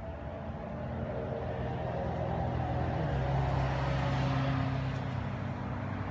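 An engine runs at a steady pitch, likely a motor vehicle. It steps up in pitch about three seconds in, swells through the middle and eases off near the end.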